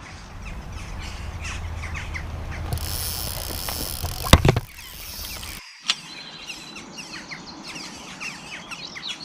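Small birds chirping and calling, with wind buffeting the microphone for the first four seconds or so and a sharp knock about four seconds in.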